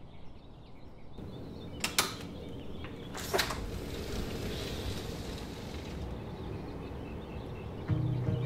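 A balcony door being opened: two sharp clicks about a second and a half apart, then a soft hiss for a few seconds, over a steady low background hum.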